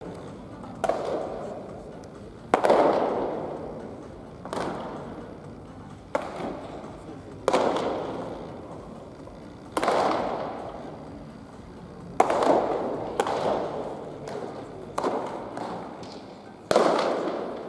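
Baseballs smacking into catchers' leather mitts during a game of catch. There are about ten sharp cracks spaced one to two and a half seconds apart, each followed by a long echo in the indoor practice hall.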